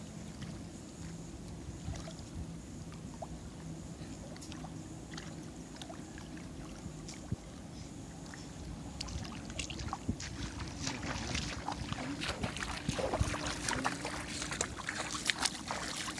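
Shallow water sloshing and splashing as people wade and work a net trap by hand, with small splashes and drips that come thicker in the second half, over a steady low rumble.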